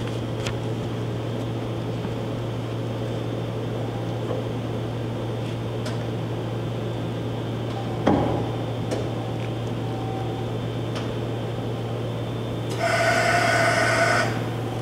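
Dahlih MCV-1450 CNC vertical machining center going through a tool-change cycle: a steady low hum throughout, a clunk about eight seconds in, and near the end a loud hiss with a tone in it lasting about a second and a half.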